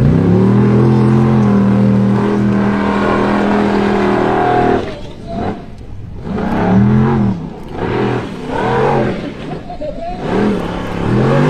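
Competition car engine held at steady high revs for about four and a half seconds, then revved up and down in short bursts, about once a second.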